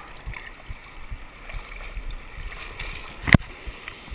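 Muffled rush of river rapids heard through a GoPro's waterproof housing held at or under the water surface, with scattered low thuds and one sharp knock a little over three seconds in.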